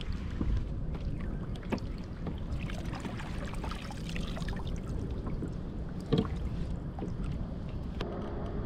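Harbour water lapping against a kayak hull, with wind rumble on the microphone. Scattered clicks and knocks of gear being handled run through it, one sharper knock about six seconds in.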